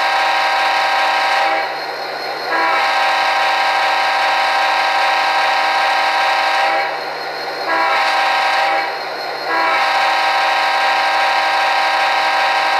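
Sound-decoder diesel air horn of an HO-scale GP39-2 model, a five-chime horn the owner takes for an S5T or RS5T, played through the locomotive's small speaker. A blast ends about a second and a half in, followed by a long blast, a short one and a final long one still sounding at the end: the long-long-short-long grade-crossing pattern. A faint steady diesel idle from the decoder runs beneath.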